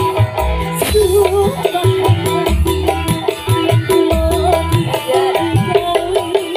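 Live dangdut music on an electone keyboard: a wavering melody line over bass pulses and a steady beat.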